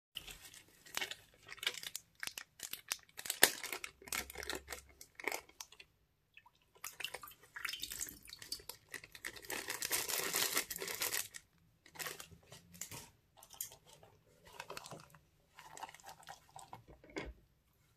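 Thin plastic zip-lock bags crinkling and rustling as they are handled and squeezed. The sound comes in irregular bursts, with a longer dense stretch around ten seconds in.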